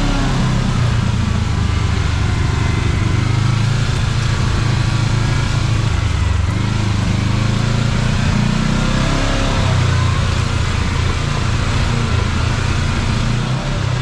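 Kawasaki KRX side-by-side's parallel-twin engine running while driving along a trail, its pitch shifting up and down with the throttle.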